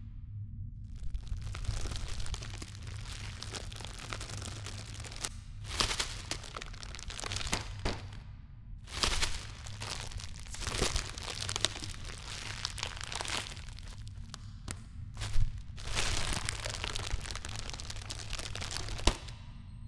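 Close, exaggerated crackling and crinkling rubbing of hands over facial skin, coming in long stretches with short breaks and sharp cracks about fifteen seconds in and near the end, over a steady low hum.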